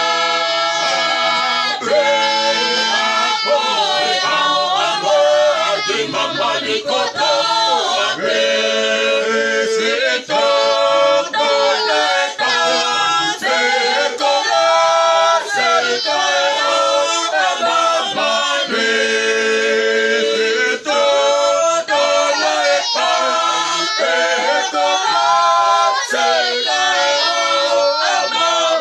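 Mixed group of men, women and children singing together unaccompanied in harmony, with long held notes and brief pauses for breath.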